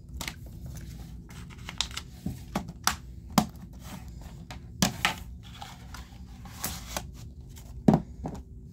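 Plastic Blu-ray cases and a cardboard slipcover being handled and set down on a table: a string of sharp clicks and knocks with light rustling between them. The loudest knocks come about three and a half seconds and eight seconds in.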